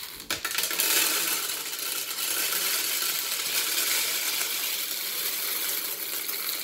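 Skittles pouring from a bag into the clear plastic canister of a bulk candy vending machine: a dense, continuous rattle of hard-shelled candies striking the plastic and each other, starting about a third of a second in.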